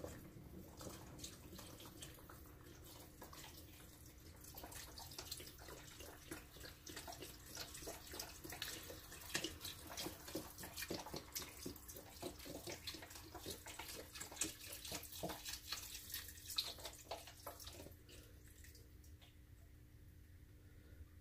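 Faint liquid sounds in the kitchen: irregular small splashes and pops over a faint steady hum, thinning out near the end.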